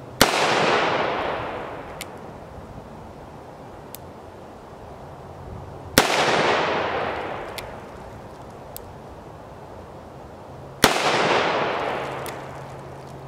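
Three single shots from a Kimber K6s DCR .357 Magnum revolver with a 2-inch barrel, loaded with .38 Special 130-grain full-metal-jacket rounds, fired about five seconds apart. Each sharp crack echoes and dies away over about two seconds.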